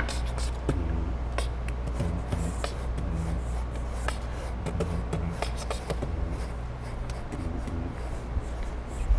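Paintbrushes rubbing and tapping on canvas: scattered small clicks and scrapes over a steady low hum.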